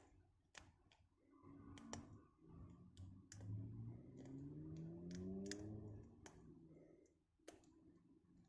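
Faint, irregular sharp clicks of a hook pick working the pins inside a small aluminium padlock under tension. Through the middle few seconds a faint low hum slowly rises in pitch beneath the clicks.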